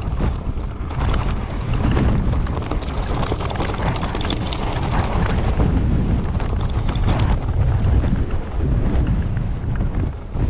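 Wind buffeting an action camera's microphone as a loud, steady low rumble, with scattered small crackles on top.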